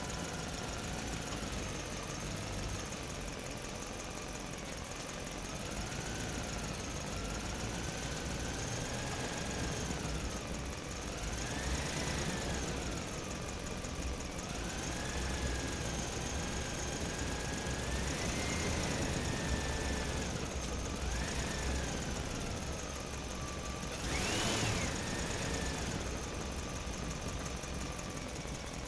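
Diesel engine of a JCB 3DX backhoe loader running, with a whining tone that rises and falls in pitch several times as it revs up and settles back. The highest and loudest rev comes about 24 seconds in.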